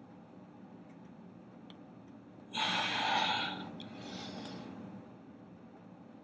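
A man's hard breath, a loud rushing exhale about a second long starting about two and a half seconds in, then a softer breath, forced out while tensing into a back double-biceps pose.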